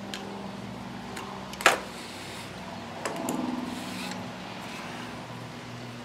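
Handling clicks from a lawnmower engine's plastic recoil starter assembly being worked with pliers to pull the old cord out of the pulley. There is a sharp click about one and a half seconds in and a brief rattle about three seconds in, over a steady low hum.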